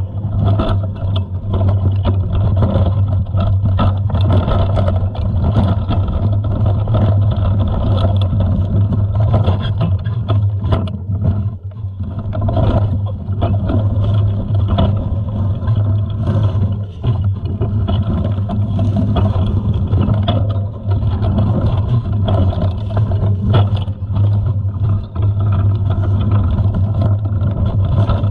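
Mountain bike ridden downhill on a rough dirt trail, heard through an action camera's microphone: a constant low wind rumble on the mic, with frequent rattles and knocks from the bike over bumps.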